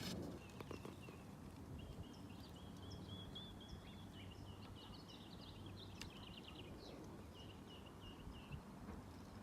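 Faint, high-pitched chirping trills of a small bird, strung together in quick runs from about two seconds in until near the end, over low outdoor background noise.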